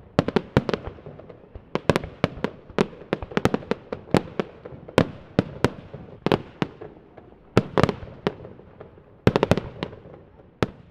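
Aerial fireworks bursting in a rapid, uneven series of sharp bangs, often several within a second, each trailing off briefly.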